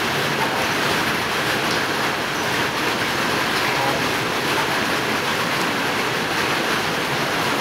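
Light rain falling steadily on the roofs, an even hiss.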